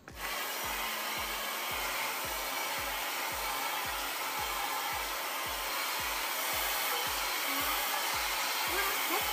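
Handheld hair dryer blowing hair, switching on right at the start and running with a steady, even rush of air.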